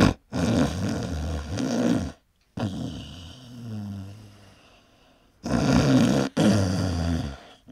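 A sleeping man snoring heavily: several long, rough, low snores, each a second or two, with short pauses between breaths.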